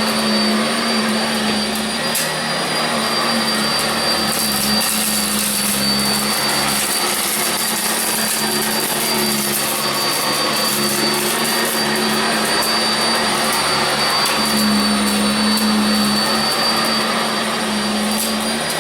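Sanitaire SC679J commercial upright vacuum cleaner running steadily while cleaning carpet: a loud, continuous motor noise with a low hum and a thin, high-pitched whine.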